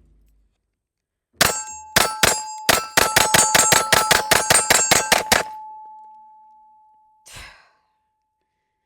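Springfield Armory Prodigy 5-inch compensated 9mm pistol fired in a rapid string of about twenty shots over four seconds, quickening toward the end, with steel targets ringing and one clear ring fading out over about a second and a half after the last shot.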